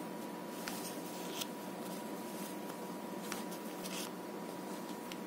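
A few short, faint rustles and scrapes of cotton thread and a steel crochet hook being worked against a paper template. Under them runs a steady hiss with a faint steady high tone.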